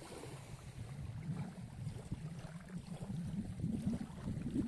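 Wind buffeting the microphone: an uneven, gusty low rumble that grows stronger toward the end.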